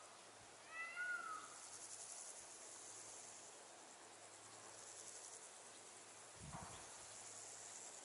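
A kite (Milvus) giving one mewing whistled call that rises and then falls in pitch, about a second in, over a faint steady high hiss.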